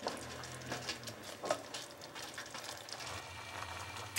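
Tomato sauce simmering in a pan, bubbling and sizzling with irregular small pops, over a faint low steady hum.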